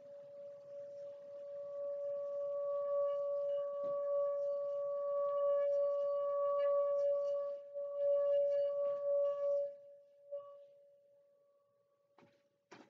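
Singing bowl rubbed around its rim with a mallet: one steady ringing tone with higher overtones that swells up over the first couple of seconds, holds, and is cut off about ten seconds in. A couple of light knocks follow near the end.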